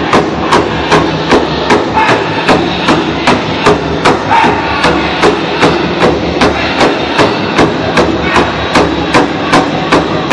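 Powwow drum group striking a large bass drum in a steady, even beat, about two and a half strokes a second, with the singers' voices carrying over it.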